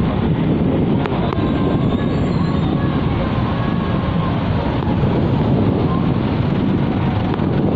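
Steady, loud rumble of a bemo minibus riding slowly through traffic, picked up by a phone held out over its roof, with the noise heaviest in the low end.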